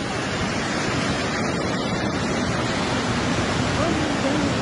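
Muddy floodwater of a flash flood rushing and churning in a steady, dense rush of noise.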